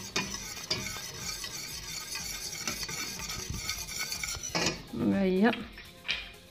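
Wire whisk stirring lemon curd in a stainless steel saucepan: a steady swishing scrape with light clinks of the wires against the pan, as lumps of butter are whisked in to melt. The whisking stops about four and a half seconds in.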